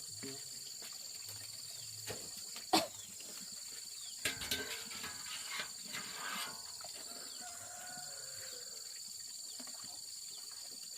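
Steady high-pitched chorus of insects, with a single sharp knock about three seconds in and a couple of seconds of clattering and rustling around the middle.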